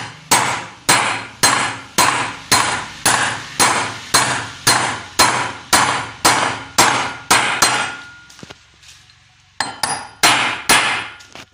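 Hammer tapping steadily on a metal drift, about two blows a second, driving a bearing into a brush cutter's clutch bell housing; each blow rings briefly on the metal. The tapping pauses for about a second and a half near the end, then resumes.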